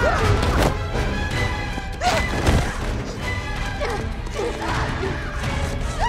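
Movie battle soundtrack: a music score with fight sound effects, several crashes and thuds, and short shouts from the fighters.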